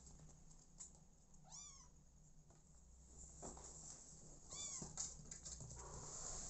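A young kitten mewing: two short, high mews, about three seconds apart, each rising then falling in pitch. A few faint clicks come in between.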